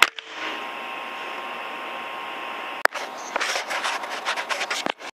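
A very sharp, loud click at the start and a second sharp click a little before three seconds in, then a quick, irregular run of rattling clicks, over a steady hiss with a faint thin whine.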